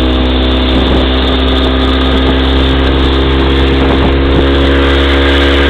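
Motorboat engine running steadily at high speed: a constant engine note over a rushing noise.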